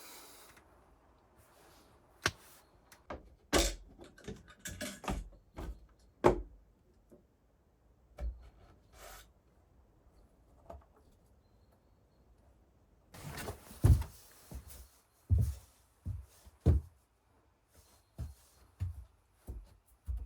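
A series of irregular knocks and thuds with short clicks between them, coming in clusters with quiet gaps, as of objects being handled and set down.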